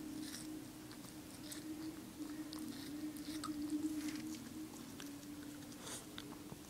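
A small dog chewing and biting watermelon rind, with irregular wet, crunchy clicks of teeth and mouth. A steady low hum runs underneath.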